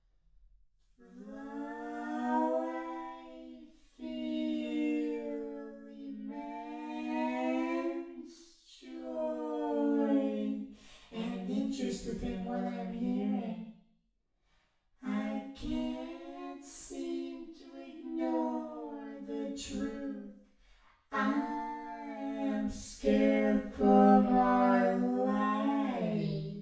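A solo voice singing a slow wordless melody without accompaniment, in long held phrases of a few seconds with short breaks for breath between them.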